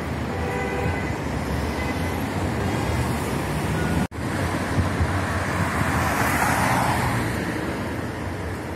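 City road traffic: a steady wash of car and tyre noise, with one car passing close about two to three seconds after a brief dropout of the sound about four seconds in.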